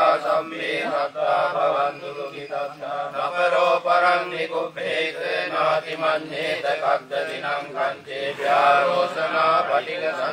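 Buddhist pirith chanting in Pali: a voice reciting verses in a steady, melodic, sing-song chant, phrase after phrase.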